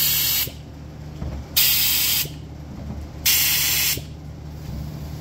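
Handheld Sioux cylinder-head vacuum tester hissing in three short bursts, about every second and a half, as it is pressed onto one port after another to pull vacuum. Each burst checks that the valve on that port seals.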